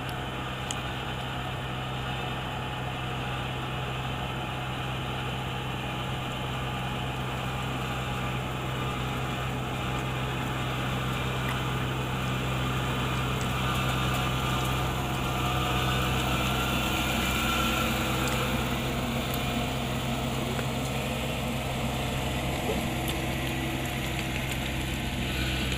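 Kubota DC-35 combine harvester's diesel engine running steadily as the tracked machine drives along, growing louder as it comes closer.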